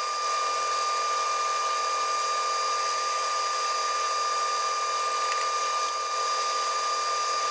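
Small metal lathe running while facing the end of a small metal pin: a steady high-pitched whine over a hiss of cutting.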